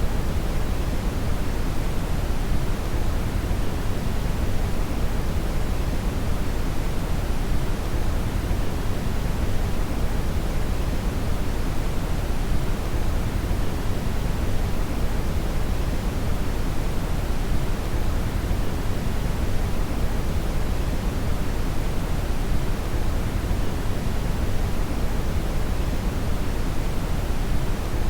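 Steady synthetic brown (red) noise: an even, deep rushing hiss with most of its weight in the low end, unchanging throughout.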